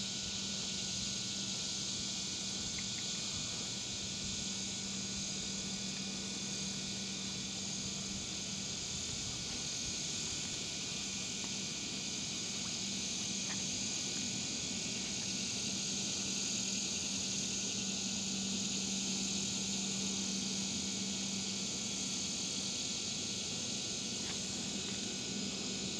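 Steady high-pitched chorus of crickets and other insects, with a low steady hum underneath that stops near the end.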